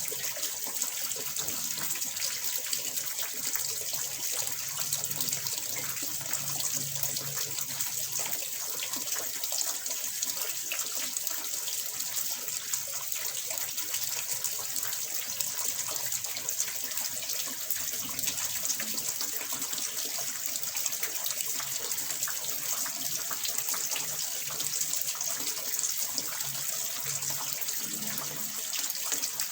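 Running water splashing steadily into a small fish pond, a continuous hissing patter of droplets with no pauses.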